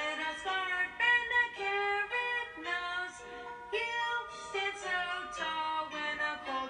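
Music: a song with a singing voice over instrumental accompaniment.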